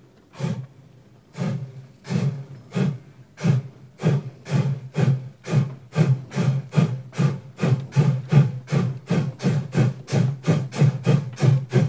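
Steam locomotive chuffing as it pulls away: rasping exhaust beats that quicken from about one a second to three or four a second.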